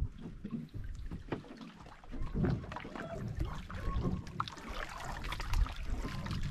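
Wind buffeting the microphone and water lapping against the hull of a small outrigger boat, with scattered light knocks and clicks.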